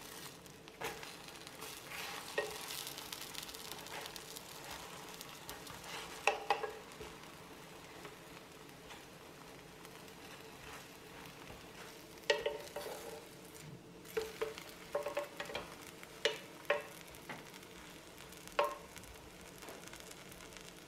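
Potato-and-celery-leaf pancakes sizzling in oil in an electric skillet, with a wooden spatula scraping and knocking against the pan now and then, most often in the second half.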